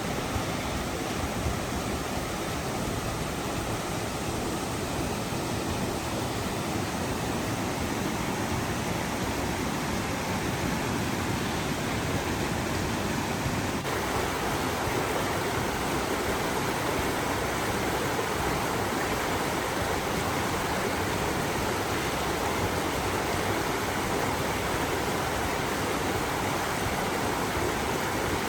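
Waterfall rushing: a steady roar of falling water that turns a little brighter about halfway through.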